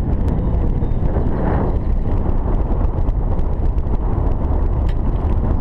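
Steady low rumble of wind buffeting the camera's microphone on an open boat, with faint small ticks throughout.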